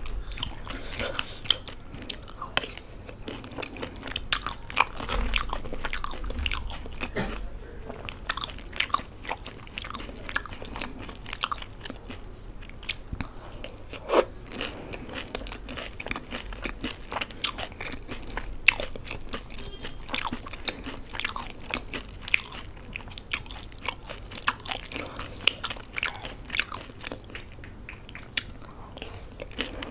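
Close-miked eating: biting into and chewing crisp puris of dahi golgappe soaked in yogurt and chutney, with many sharp, irregular crunches and wet mouth sounds.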